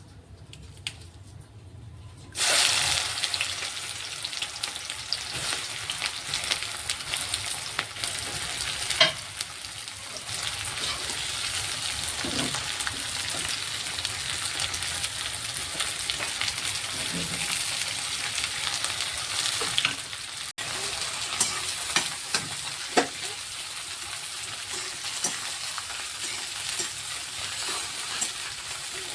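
Chopped okra frying in hot oil in a pan: a dense sizzle that begins suddenly about two seconds in and keeps going, with occasional knocks from the stirring spoon against the pan.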